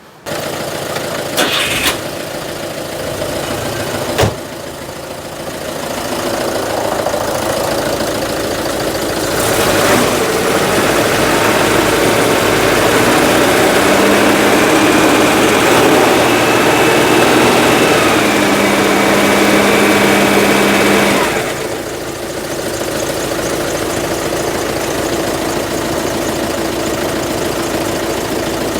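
Citroen GSA's air-cooled flat-four engine starting up and running, with two sharp clicks in the first few seconds. It is held at higher revs for about fifteen seconds, then drops back to a steady idle a little over twenty seconds in.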